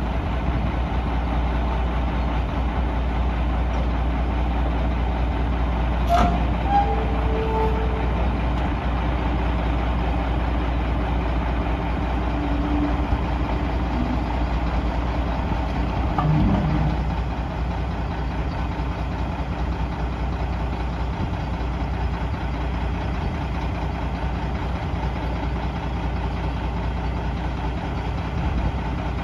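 Mack RD roll-off truck's diesel engine running steadily at idle, a strong low hum, with a sharp click about six seconds in. The engine gets slightly quieter at about seventeen seconds in.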